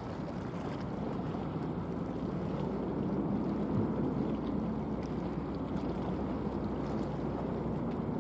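Steady low rumble of a passing container ship's engine and hull moving through the water, with a faint constant hum.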